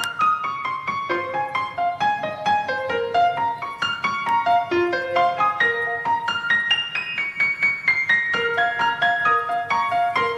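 Background piano music: a steady flow of quick, light notes.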